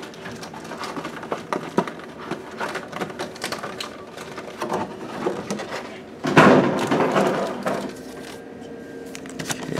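Trading-card booster packs and plastic packaging being handled: scattered light clicks and taps, with a louder rustle lasting about a second, six seconds in.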